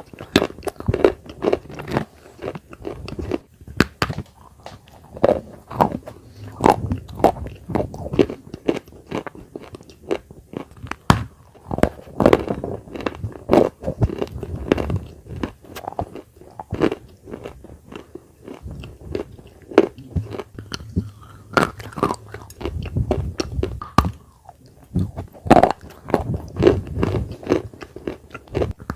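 Dry edible clay (khawa, red earth) being bitten and chewed, with irregular sharp crunches as pieces break between the teeth.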